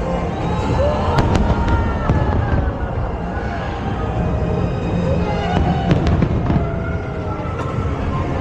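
Aerial fireworks bursting in a pyromusical display, with sharp cracks about a second in and again near six seconds over a continuous rumble of shells, and music playing along with the show.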